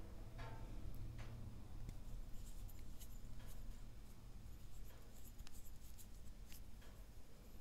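Fingers twisting open the plastic cap of a liquid eyeliner tube: scattered light clicks and short scratchy rubs of plastic on plastic, over a faint low hum.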